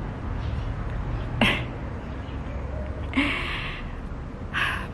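A woman's wordless vocal sounds. About a second and a half in comes a short groan that falls in pitch, followed by two short breathy hisses, one near three seconds in and one near the end.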